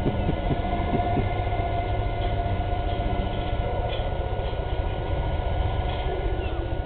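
Fishing boat's diesel engine running steadily as the boat breaks through sea ice, with a higher steady whine over the rumble for the first few seconds.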